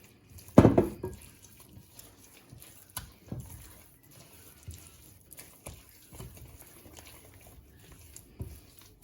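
Hands mixing and pressing wet barley-grits dough in a bowl, with soft wet squelching and clicking; the loudest sound comes about half a second in.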